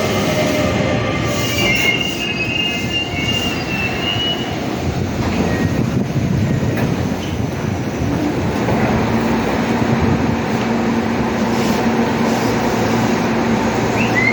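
Keisei Main Line eight-car train running into the platform, its wheels squealing high for the first few seconds over a heavy steady rumble. A steady low hum joins about halfway through.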